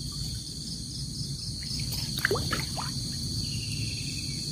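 Steady, shrill insect chorus over a low rumble of water and wind. About two seconds in come a sharp knock and a few quick falling chirps.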